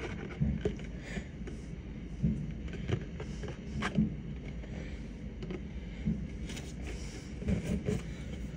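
Distant aerial fireworks shells bursting, heard as about half a dozen dull, low thumps at irregular intervals over a steady background hum.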